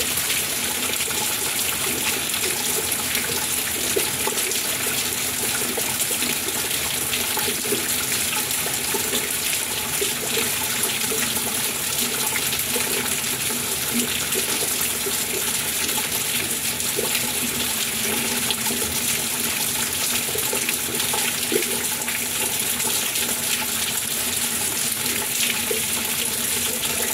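Steady rain falling, an even hiss dotted with tiny drop ticks.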